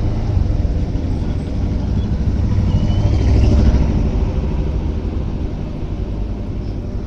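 Motorcycle engine running steadily under a low rumble of road and traffic noise, picked up by a helmet microphone while riding.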